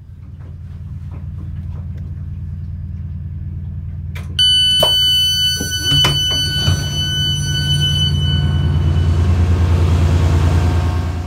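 Passenger door of a Chiltern Railways Mk3 coach opening at a station stop: over the train's low steady rumble, the door warning sounds about four seconds in as a loud, high, steady electronic tone, with a couple of clunks as the door releases and slides open. The tone stops near the end, leaving open-air noise over the steady low hum of the idling diesel locomotive.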